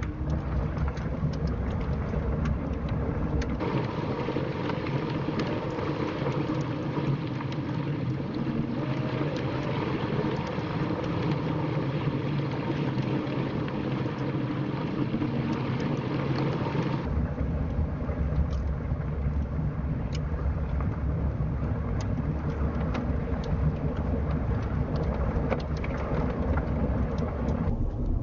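Car driving on a dirt road, heard from inside the cabin: a steady rumble of tyres and engine, with scattered small ticks. The rumble changes character a few seconds in and again past halfway.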